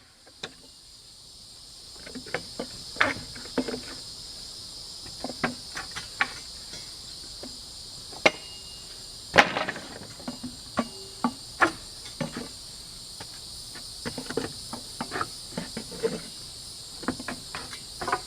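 Irregular knocks and cracks of pallet boards being levered off with a steel pallet-dismantling tool, the boards loosening from their nailed runners. The loudest crack comes about nine seconds in. A steady high chorus of crickets and other insects sounds underneath.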